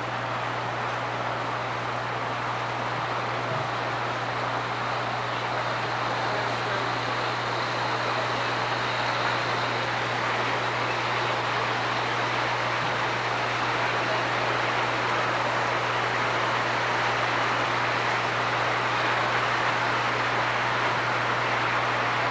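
O scale model train rolling past, a steady rumble of wheels on track that grows slightly louder, over a constant low hum.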